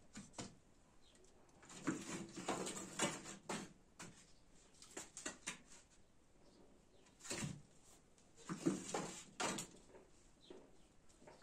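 Wooden sticks knocking and scraping as they are pushed into a clay wood-fired oven, in two spells of clatter, one a couple of seconds in and one in the latter half.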